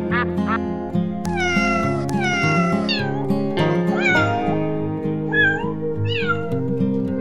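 A cat meowing about four or five times, long calls that fall in pitch, over background music. Just at the start, a few quick duck quacks trail off.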